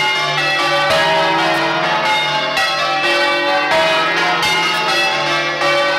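Church bells being rung full circle in change ringing: a quick, even succession of strikes with the notes overlapping and ringing on.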